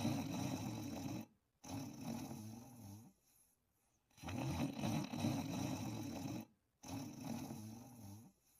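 Sleeper snoring: rough, low snores on each breath, in pairs, two close together, a pause of about a second, then two more.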